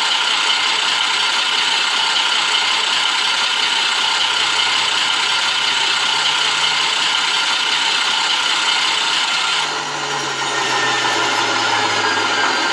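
Digital sound decoder playing an Alco 539T six-cylinder diesel switcher engine through a small loudspeaker, running steadily with a harsh, buzzy rasp. About ten seconds in the sound dips briefly and changes, and a thin falling whine follows.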